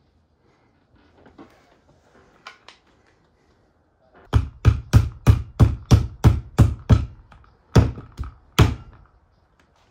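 Plastic plunger-style hand corker being slapped on top with the palm to drive a cork into a bottle. About nine sharp thumps come at roughly three a second, then three more after a short pause.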